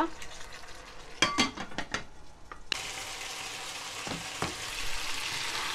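Chicken pieces sizzling in a hot pan, stirred with a wooden spatula that knocks and scrapes against it a few times. About halfway through the sizzle suddenly gets louder and hissier and stays that way.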